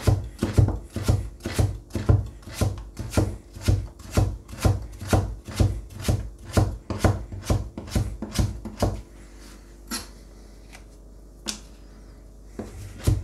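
Nakiri knife chopping carrots into thin strips on a cutting board, the blade knocking the board in a steady rhythm of about two strokes a second. About nine seconds in the chopping stops for a few seconds, with two single knocks as the carrot slices are gathered by hand, then starts again near the end.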